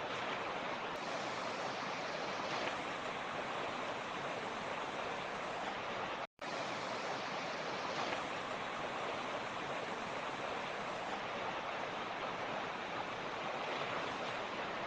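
Rushing creek water running steadily, a dense even rush. It cuts out for a split second about six seconds in.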